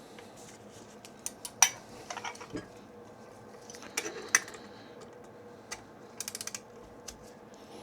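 Hand tools working on a stuck oil filter housing: sharp metal clicks and clanks, with a quick run of about six ratchet-like clicks a little after six seconds in.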